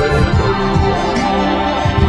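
Background music: sustained chords over low, recurring thuds.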